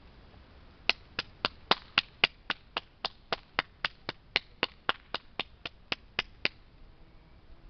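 A quick, even run of about twenty sharp hand claps, about four a second, starting about a second in and stopping after about five and a half seconds: clapping to call puppies to their food.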